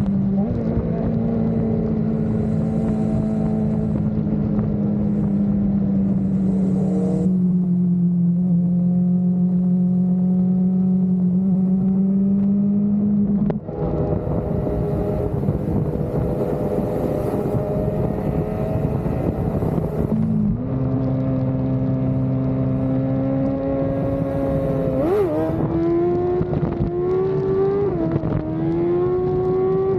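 Superbike engine running at steady cruising revs, with a brief break in throttle about halfway through. Near the end the revs climb in several steps, as under hard acceleration through the gears.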